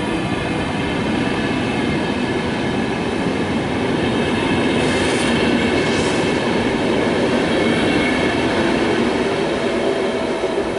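VR Class Sr2 electric locomotive hauling double-deck InterCity coaches past and away as the train leaves the station. There is a steady rumble of wheels on rail, with a thin, steady electric whine over it.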